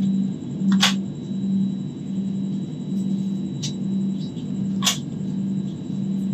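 Steady low hum and rumble inside an air-conditioned train coach, with two sharp clicks, about a second in and about five seconds in.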